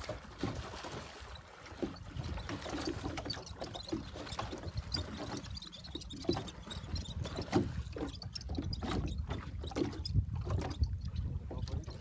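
Choppy sea water splashing and slapping irregularly against a small boat's hull, with a low rumble that grows louder near the end.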